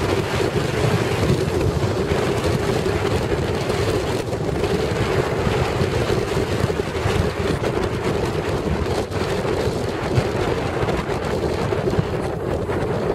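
Steady road and wind noise inside a moving car, with wind buffeting the microphone.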